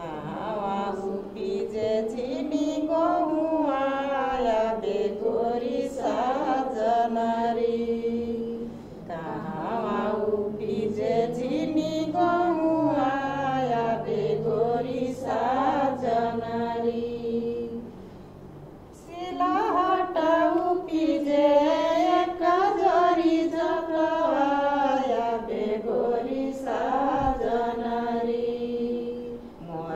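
A woman singing a Tharu folk song in long, gliding melodic phrases, with short breaks between phrases about 9 and 19 seconds in.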